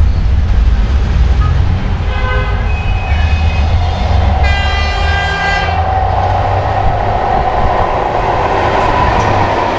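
EP1M electric locomotive sounding its horn as it approaches with a passenger train: a short signal about two seconds in, then a longer, stronger blast of about a second and a half near the middle. After it comes the rising rumble and wheel-on-rail rolling noise of the locomotive and its coaches passing close by.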